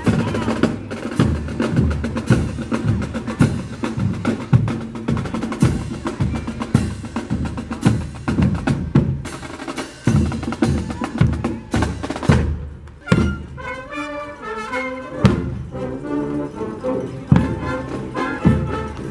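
Police marching band playing on parade: snare and bass drums beat a steady march rhythm, with brass including sousaphone and trombones. About two-thirds of the way through, the drumming thins out and a melodic passage stands out, then the drums come back in.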